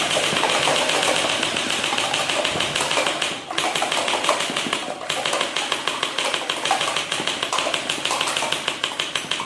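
Toy Glock 17 pistol firing in long runs of rapid mechanical clicks, broken twice by short pauses, about three and a half and five seconds in.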